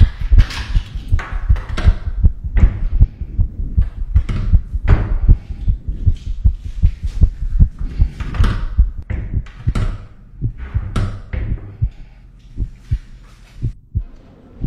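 Fast heartbeat-like low thumps repeating several times a second, with bursts of hiss-like rustling over them. Both thin out about twelve seconds in.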